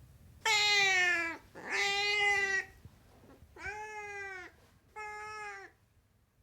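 Domestic cat meowing four times, each meow about a second long. The first two are the loudest, the first falling in pitch. The last two are softer and rise then fall.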